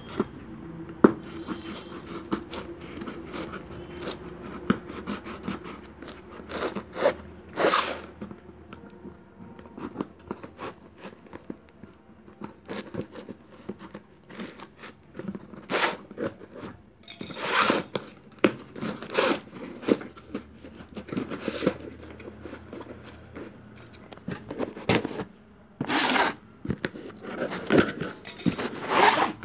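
Scissors slitting and scraping along the packing tape of a cardboard box in short, irregular strokes, with tape tearing. The loudest rasps come near the end as the cardboard flaps are pulled open.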